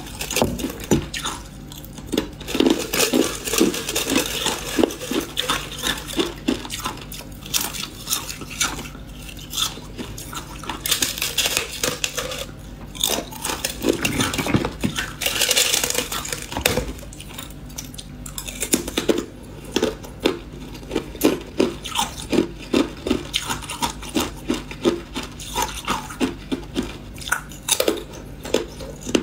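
Thin shell of clear ice being cracked and snapped off with the fingers, and pieces of hard ice crunched between the teeth: a run of sharp crackles and clinks, turning in the last third into steady crunching about twice a second.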